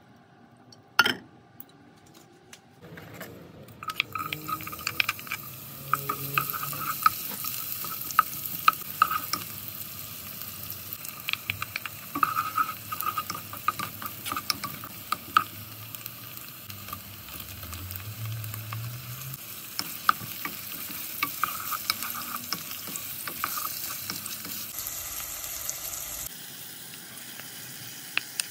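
Food frying in hot oil in a pan while a utensil stirs it, scraping and tapping against the pan. A sharp knock comes about a second in, and the sizzling starts a few seconds later.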